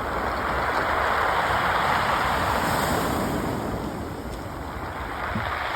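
Sea waves breaking and washing on a pebble beach, a continuous surf wash that swells in the first half, eases off about four seconds in, and builds again near the end.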